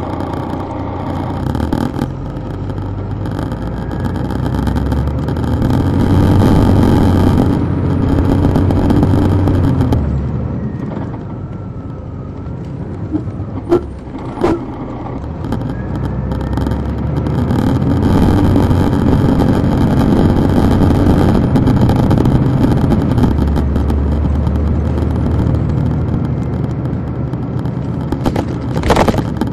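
Detroit Diesel Series 60 diesel engine of a 2002 MCI D4000 coach, heard from the rear seat near the engine, building up as the bus accelerates, easing off about ten seconds in, then building up again. Two sharp clicks come about midway and another near the end.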